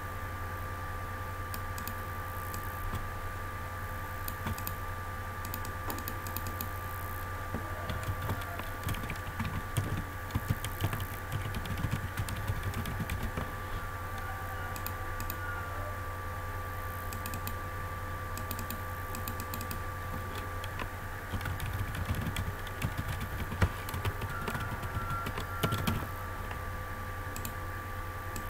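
Computer keyboard typing in two short bursts, the first about eight seconds in and the second about twenty-one seconds in, over a steady low electrical hum.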